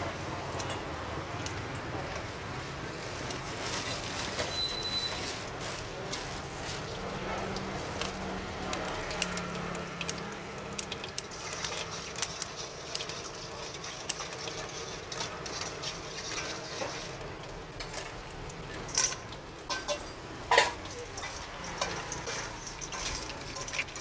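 A metal spoon and tongs clinking and scraping against stainless-steel bowls over a steady background hum, with a few sharper clinks toward the end.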